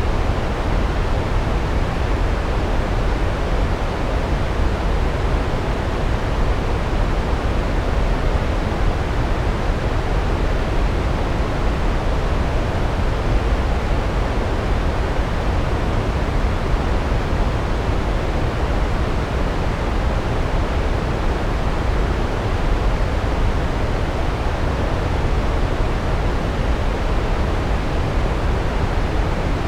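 Large waterfall: water pouring down over rocks in a steady, unbroken rush, heaviest in the low end.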